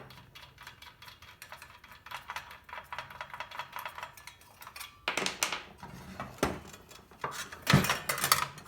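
Metal tools and saw parts being handled on a workbench: rapid light ticking for the first few seconds, then louder clinks and clatter.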